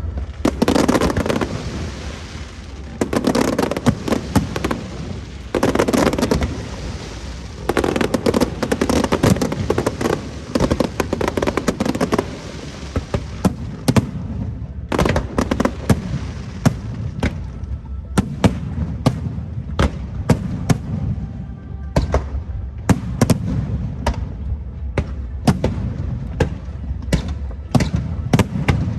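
Aerial fireworks going off in a dense barrage: heavy overlapping bursts for the first dozen seconds, then a rapid run of sharp cracking bangs.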